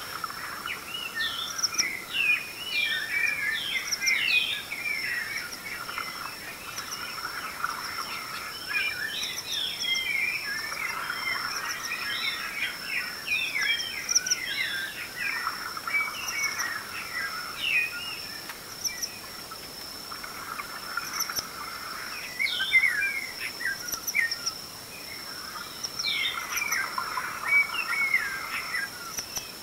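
Dawn chorus of many birds: dense, overlapping chirps and whistles, thinning briefly past the middle, over a steady high-pitched trill.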